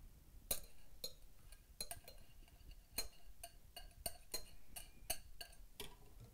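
A spatula scraping and tapping against glass bowls as melted butter is scraped out, making a run of light, irregular clicks and clinks.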